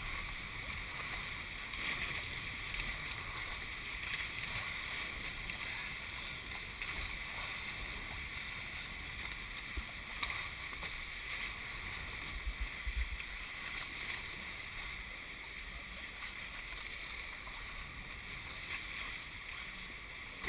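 Water rushing past the hulls of a Hobie 21SE catamaran under sail, with wind on the microphone; a steady hiss, with a few low bumps around the middle.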